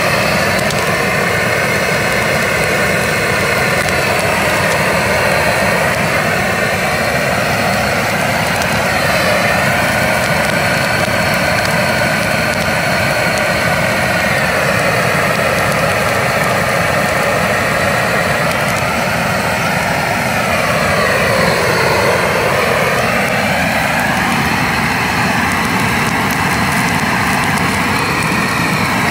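Handheld weed-burner torch burning with a steady jet-like rush of flame. Its tone sweeps down and back up about two-thirds of the way through.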